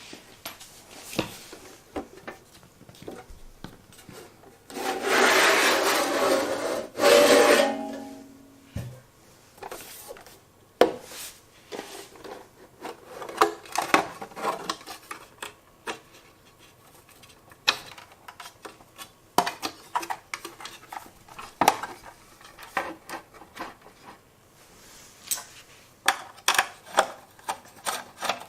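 Irregular clicks, taps and rubbing of small parts being handled. A loud scraping rustle lasts about two and a half seconds, starting about five seconds in.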